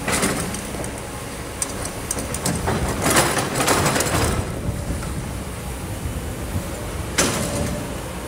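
Kobelco hydraulic excavator running, its diesel engine rumbling steadily as it digs and swings. A gritty scraping of sand and stones comes about three seconds in, and a sharp knock near the end.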